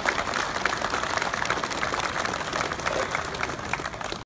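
A crowd applauding, many people clapping at once in a steady patter.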